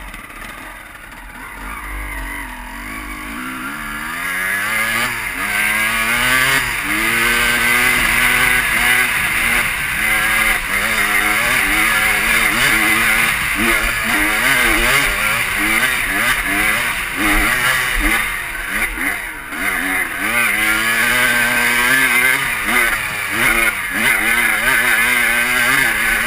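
Dirt bike engine pulling away and then riding along a rough trail, its revs rising and falling over and over as the rider works the throttle. It is quieter at first and grows loud over the first few seconds.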